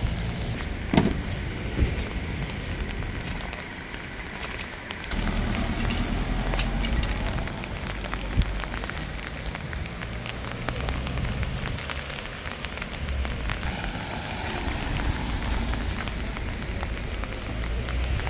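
Rain falling on a wet street, a steady patter with many small drop clicks, over a low rumble of vehicle engines running. The sound grows louder and fuller about five seconds in.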